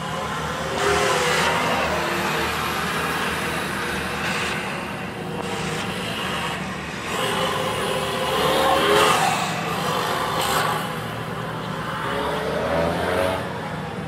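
GAZelle NEXT rally-raid truck driving past, its engine revving up and easing off several times as it pulls away and turns.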